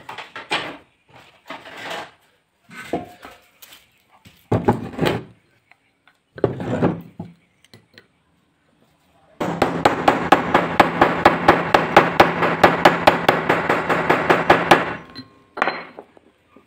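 Claw hammer tapping metal on an electric planer's armature to drive its bearing, in a rapid, even run of light taps for about five seconds, starting about nine seconds in. Before that come scattered knocks and handling of wood and metal parts.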